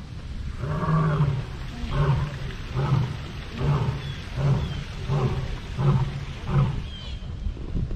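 A big cat roaring: one longer call, then a run of about seven shorter grunting calls spaced evenly under a second apart.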